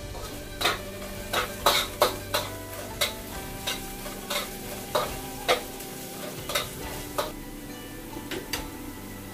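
Spatula stirring and clinking against a stainless steel wok, about one to two strikes a second, as ginger and garlic sizzle in hot oil. The strikes grow fainter near the end.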